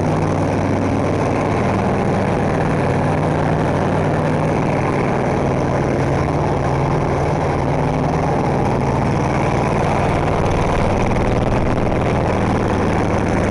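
John Deere snowblower engine running steadily just after a cold start in freezing weather, at an even, unchanging speed.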